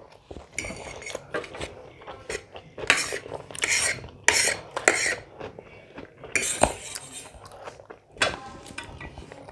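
Metal cutlery scraping and clinking against a plate in irregular strokes. The loudest strokes come a few seconds in and again about two-thirds of the way through.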